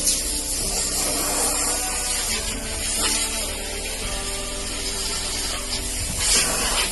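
Background music with sustained chords that change a few times, over a steady hiss.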